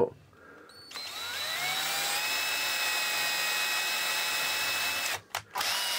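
Cordless drill turning a combined drill-and-tap bit, cutting a thread into a pre-drilled hole in a clear acrylic part. The motor whine starts about a second in, rises in pitch as it speeds up, then runs steady; it stops briefly near the end and starts again.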